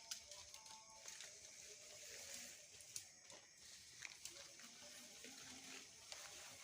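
Near silence: faint forest ambience with a steady high hiss and scattered small clicks and rustles.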